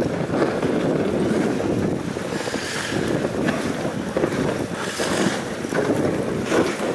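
Dog sled moving over snow: a steady hiss and scrape of the runners, with wind buffeting the microphone and a few louder swishes.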